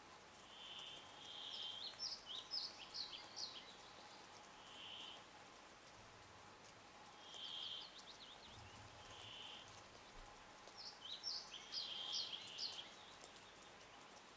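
A songbird singing in two phrases a few seconds apart: short, clear whistled notes held on one pitch alternating with quick runs of falling notes. A faint steady hum runs beneath it.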